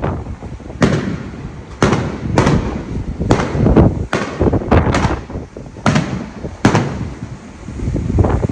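Fireworks display: a rapid string of sharp bangs, about one or two a second, each trailing off in a low rumble.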